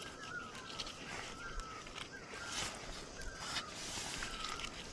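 A bird calling in the background, a short thin call repeated about once a second, with a few faint clicks.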